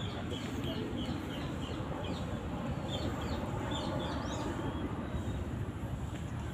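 A bird calling in a quick run of short, repeated chirps for the first four seconds or so, over a steady low outdoor rumble.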